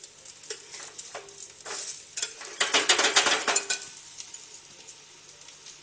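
Potato tikkis shallow-frying in oil in an enamel pan, sizzling, while a spatula scrapes and clicks against the pan as the patties are turned over. The scraping is busiest in the middle and dies down near the end.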